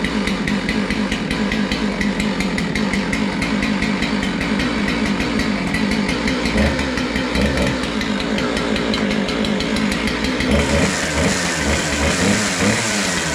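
Small two-stroke chainsaw running after being started while flooded. About ten seconds in, a high hiss joins the engine sound.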